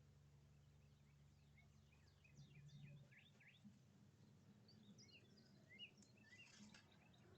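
Faint songbird chirping: quick clusters of short, steeply falling notes, about two seconds in and again from about four and a half seconds, over a low steady hum that stops about three seconds in.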